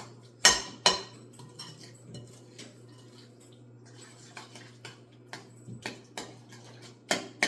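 A utensil knocking and clinking against a mixing bowl while cream cheese, brown sugar and canned pumpkin are broken up and stirred by hand. Two sharp knocks come in the first second, then lighter, irregular taps later on.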